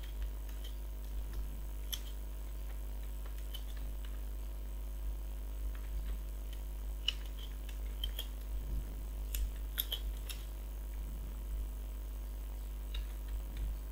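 Computer keyboard being typed on: scattered, irregular key clicks, over a steady low hum.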